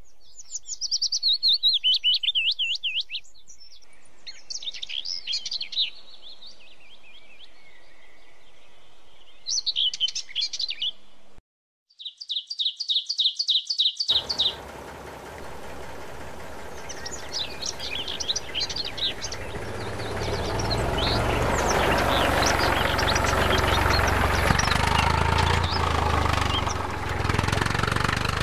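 Birds chirping in quick repeated trills through the first half. Then a small homemade toy tractor's motor starts up and runs with a steady whirring noise that grows louder toward the end, birds still calling over it for a while.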